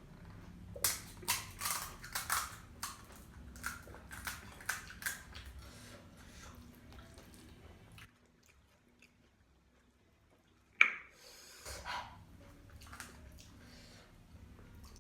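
Close-up chewing and crunching of crisp snack food such as panipuri and chatpate: a quick run of crunches over the first few seconds, then softer chewing, a quiet pause, one sharp crack and a few more crunches.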